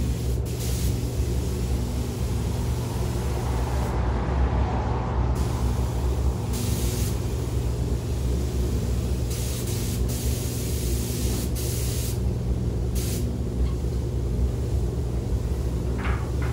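Air spray gun hissing in short bursts of half a second to two seconds as coating is sprayed onto the car body. Under it runs the steady low hum of the spray booth.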